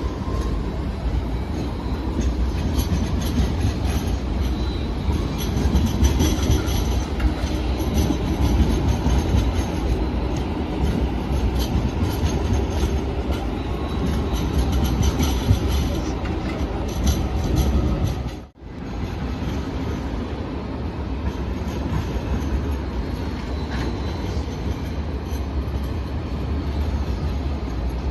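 Sydney light rail tram running on its rails, a steady low rumble with faint high wheel squeal at times. The sound drops out briefly about two-thirds of the way through.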